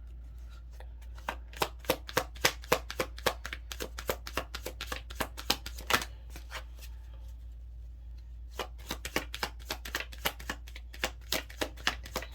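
Tarot cards being shuffled by hand: a rapid run of sharp card clicks and slaps, a pause of about a second and a half seven seconds in, then more shuffling.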